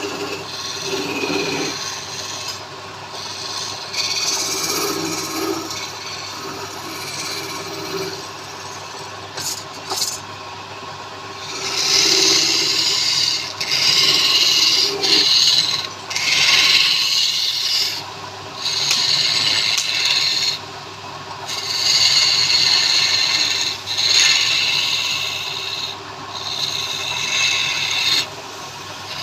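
Wood lathe running with a steady hum while a turning tool or abrasive is pressed against the spinning wood in repeated passes, each a second or two of rough noise with short breaks between, heavier in the second half.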